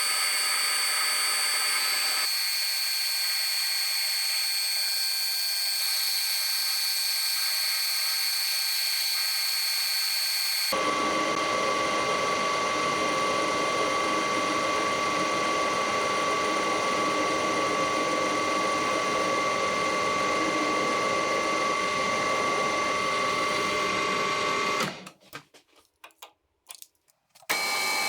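Metal lathe running steadily, turning an aluminium replacement pin: a machine whine with several fixed tones that changes abruptly twice. The sound almost drops out for about two seconds near the end.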